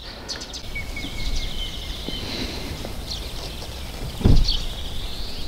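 Outdoor spring ambience: small birds chirping over a steady low wind rumble on the microphone, with one short low thump about four seconds in.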